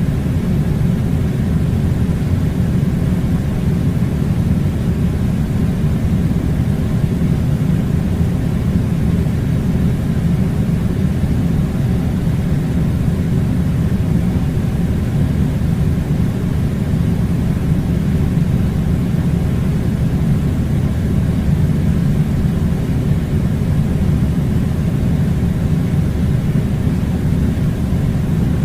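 Air conditioner running, a steady low rumbling drone with an even hiss above it.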